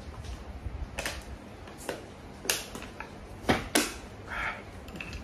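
A handful of separate sharp knocks or clicks, about five in all, two of them in quick succession about three and a half seconds in, over a low steady rumble.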